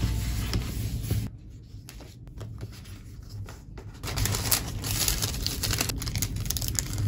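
Hands handling packaging: a soft rustle of a kraft cardboard mailer, a quieter stretch of light clicks, then from about four seconds in a translucent sleeve around a sticker sheet crinkling as it is handled.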